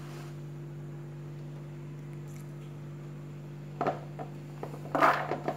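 Steady low electrical hum, then near the end a knock and a short scraping rustle as chopped onion is tipped from a wooden cutting board into a plastic bowl.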